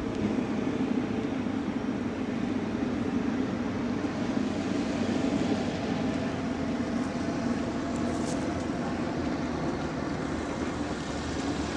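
Sherp amphibious ATV's diesel engine running steadily, a low even drone.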